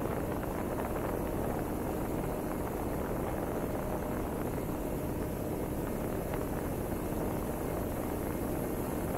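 MFD Nimbus model plane in flight, heard through its onboard camera: a steady rush of wind noise with a faint steady hum.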